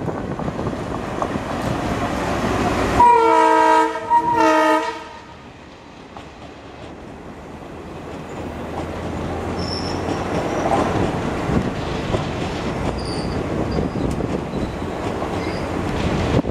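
Indian Railways WDM-3A diesel locomotive hauling a passenger train past, its air horn sounding two loud blasts of a chord about three seconds in. Afterwards the coaches roll by with wheels clattering over the rail joints, growing steadily louder.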